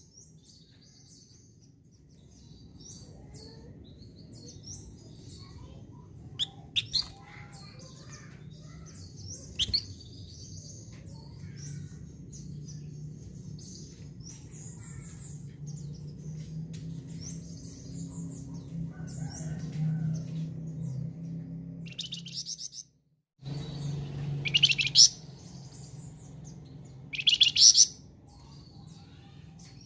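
Flamboyan songbird singing vigorously: short, loud, rapid bursts of high notes every few seconds, with softer chirps in between, over a low steady hum.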